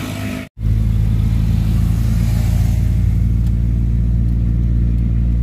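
A brief dropout about half a second in, then a steady low engine and road drone heard inside the cabin of a moving car.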